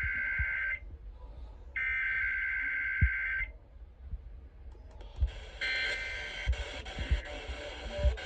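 Emergency Alert System SAME header over a radio broadcast: bursts of warbling digital data tones that open an EAS alert or test. Two full bursts are heard, and a third begins about five and a half seconds in with a wider hiss.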